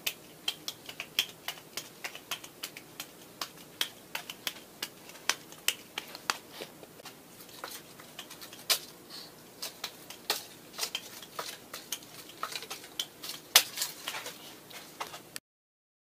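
Apples slapping into bare palms as they are juggled: a run of sharp, irregular slaps, several a second, which cuts off suddenly near the end.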